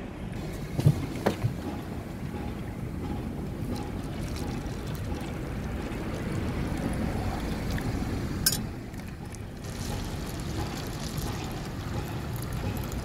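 Coffee poured from a glass carafe into paper cups, over a steady low rumble. A few light knocks come about a second in, and a sharp click about eight and a half seconds in.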